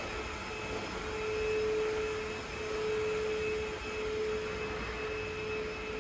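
Steady electrical or mechanical hum: one held mid-pitched tone with fainter higher tones over a low hiss, swelling slightly a couple of times.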